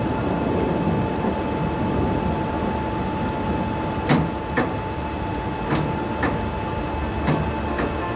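Machinery running with a steady low rumble and a faint steady tone. From about halfway through, sharp clicks come in pairs about half a second apart, with each pair roughly a second and a half after the last.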